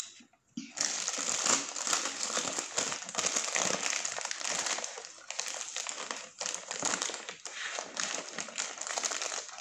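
Paper wrapper around a footlong wrap crinkling and rustling continuously as it is peeled back and handled, starting about a second in.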